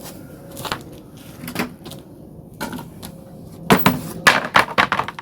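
Hammer driving a nail into a wooden plank: a few spaced taps, then a quick run of about six harder blows near the end.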